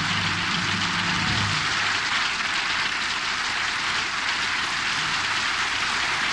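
Studio audience applauding steadily, a dense even clatter of many hands. Low music underneath stops about a second and a half in.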